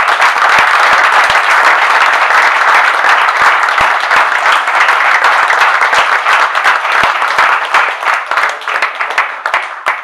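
An audience applauding: dense, steady clapping that starts to thin out near the end.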